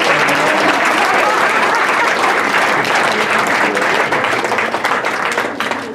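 Audience applauding: dense, steady clapping from many hands, tailing off near the end.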